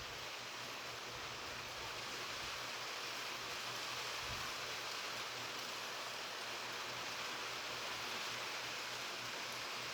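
Steady rain falling, an even hiss with no distinct drops or pauses.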